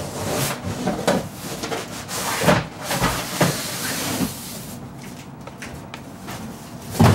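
Cardboard shipping box being slid up and off a computer case packed in foam end caps: cardboard scraping and rustling with a few dull knocks, and a louder thump at the very end.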